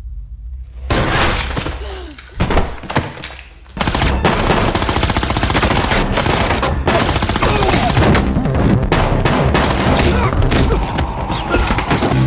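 Film gunfire: a few separate shots or hits, then from about four seconds in a long run of rapid gunfire.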